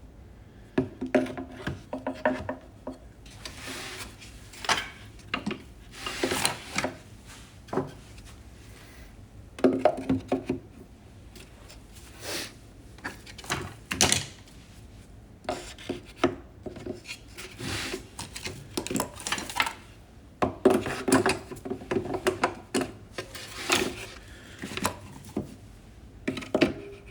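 Pieces of wood being handled and fitted on a workbench: irregular wooden knocks and clacks, some with a short hollow ring, mixed with a few scraping, rubbing strokes.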